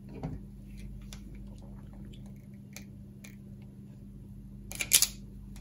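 Faint handling ticks, then near the end a quick cluster of sharp clicks as a red-handled wire stripper/cutter closes on a short length of thin coax cable to cut it.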